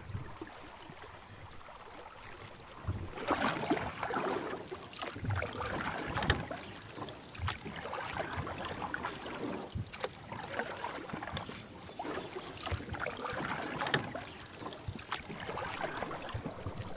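Paddle strokes dipping and splashing in the river, a swell of watery noise every second or two, with a couple of sharp knocks.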